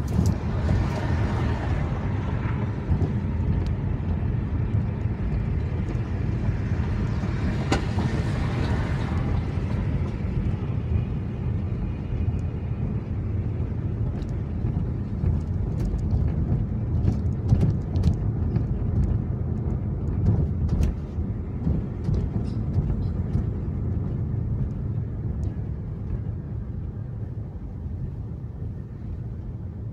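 Car cabin road noise while driving slowly in city traffic: a steady low rumble of engine and tyres, heard from inside the car. Louder rushing swells come near the start and again about eight seconds in.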